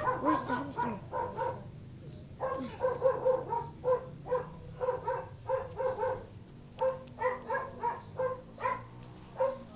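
A dog barking over and over, about two or three short barks a second, with a short break about two seconds in.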